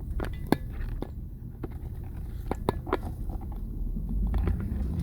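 Low rumble of a vehicle on the move, heard from inside the cab, with scattered sharp clicks and crunches; the rumble grows louder near the end.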